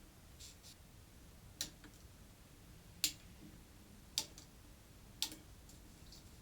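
Four sharp clicks or taps about a second apart, with fainter ticks between them.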